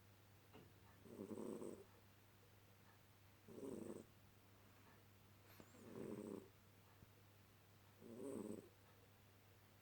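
A cat snoring softly in her sleep: four short snores, evenly spaced about every two and a half seconds.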